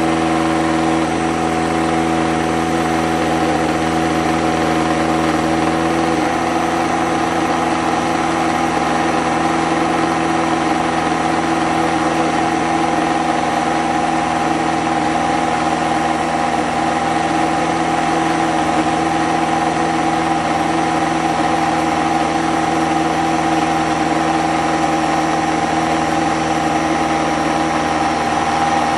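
Tefal countertop blender running steadily, its motor giving a constant hum as it purées soaked beans and pepper into a smooth batter.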